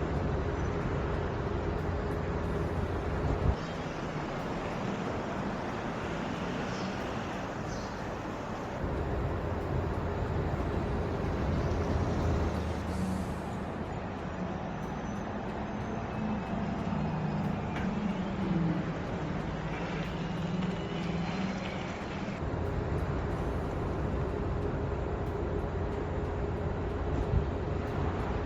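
Volkswagen ID. Buzz electric van driving: a steady rush of tyre, road and wind noise over a low hum, with no engine sound. The noise changes abruptly three times, and there are two brief sharp knocks.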